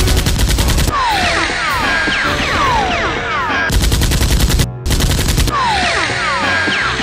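Automatic gunfire sound effects: rapid machine-gun bursts, three in all, with clusters of falling whistles between them.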